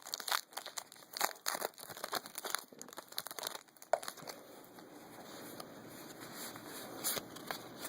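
Trading-card pack wrappers crinkling and cards rustling as they are handled. It is busy with sharp crackles for the first four seconds or so, then settles to a quieter, steadier rustle with a couple of clicks near the end.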